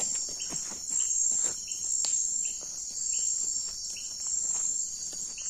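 Night chorus of crickets and other insects: a steady high shrill that swells and eases about once a second, with a short repeated chirp about twice a second and occasional soft rustles.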